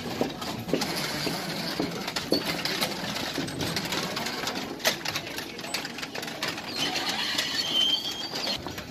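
Row of metal Buddhist prayer wheels rattling and clacking on their spindles as they are spun by hand one after another, with irregular sharp knocks. A bird calls briefly near the end.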